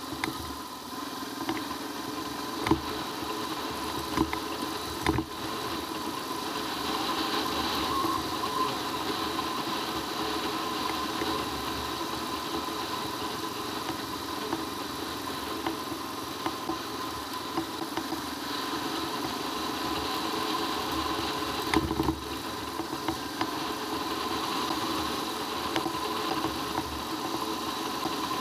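Royal Enfield Himalayan's single-cylinder engine running steadily while the bike is ridden along a dirt road, with a few sharp knocks from bumps along the way.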